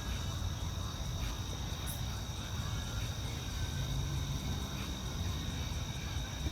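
Insects trilling steadily at two high pitches, over a constant low rumble.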